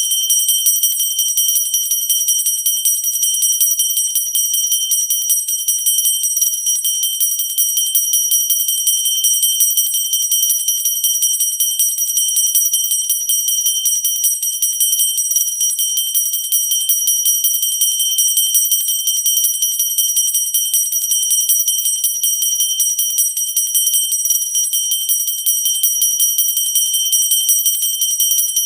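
Pooja hand bell rung without pause, its clapper striking rapidly so the high, bright ringing never dies away.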